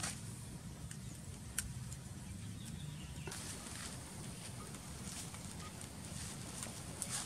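Outdoor ambience: a steady low rumble with a faint high hiss and a few sharp clicks.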